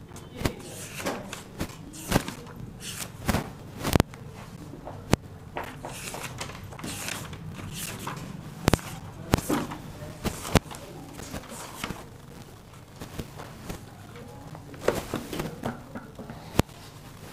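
Irregular sharp clicks and knocks, a few of them loud, with faint indistinct voices in a small room.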